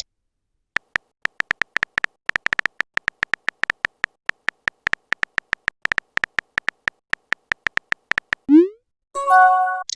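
Phone-keyboard typing clicks, quick and irregular, then near the end a short rising pop followed by a chat-message chime.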